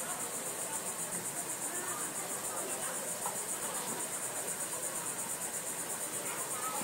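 Insects chirring in a steady, high-pitched, evenly pulsing trill.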